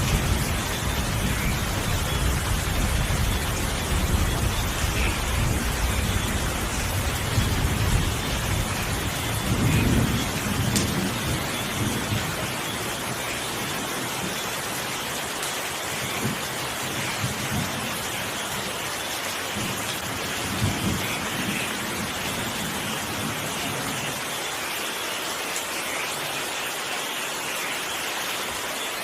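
Steady rain with a long roll of thunder rumbling through the first dozen seconds and dying away, then a few weaker rumbles before the rain goes on alone.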